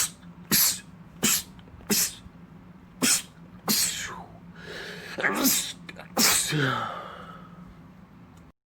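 A man sneezing in a rapid run of about eight sneezes. The first four are short and quick, about two a second; the later ones are longer and voiced, with a falling 'choo'.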